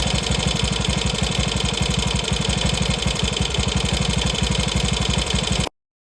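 Bevel-drive Ducati motorcycle engine idling with a steady, fast low pulse; it cuts off abruptly near the end.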